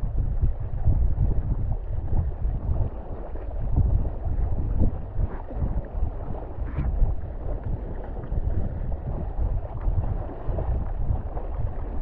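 Wind buffeting the microphone in an uneven low rumble, over the rush and splash of water under a windfoil board skimming the surface.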